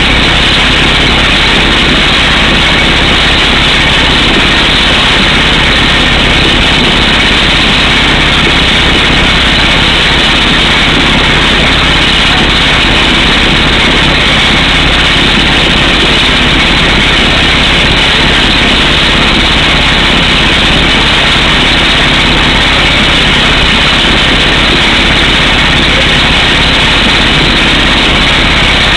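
Air hammer on a truck-mounted drill rig pounding a 18-inch hole through solid rock: a loud, steady, unbroken noise with an engine running beneath it.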